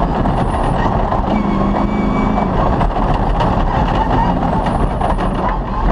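Off-road rally car driving a special stage at speed: engine running steadily under a dense layer of rattles and knocks from the rough track.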